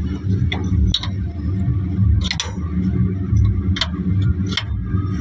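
Steady low rumble of an idling engine with about five sharp clinks spread through it, the loudest about two seconds in, typical of tools striking the wheel during a truck tyre change.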